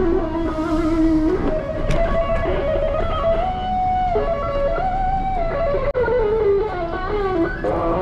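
Electric guitar playing a slow lead melody of held notes with bends and slides between them.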